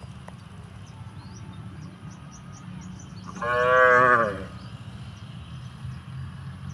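A cow mooing once, a call about a second long whose pitch drops at the end.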